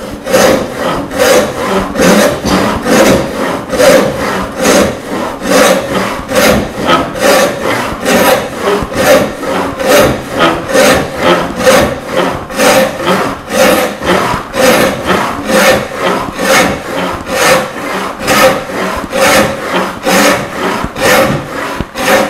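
Roubo-style frame saw resawing a small walnut board by hand, the blade rasping through the wood in a steady rhythm of back-and-forth strokes, cutting on the push. The sawing stops abruptly at the very end.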